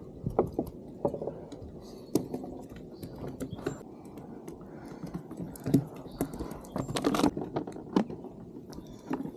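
Irregular sharp taps, slaps and knocks, a few of them louder, while a catch of mackerel on a sabiki rig is handled.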